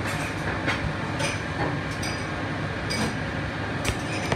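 Commercial kitchen din: a steady mechanical drone, cut by sharp clinks and clatters of metal pans and utensils about once a second.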